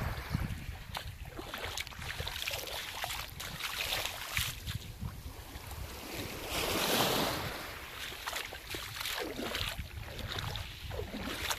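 Small waves washing onto a pebble beach, with a louder wash about seven seconds in and scattered sharp clicks, over wind rumbling on the microphone.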